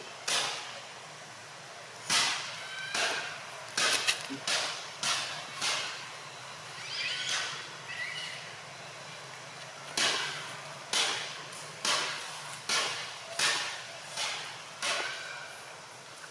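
Monkeys giving a string of short, harsh cries, roughly one a second, with a lull in the middle.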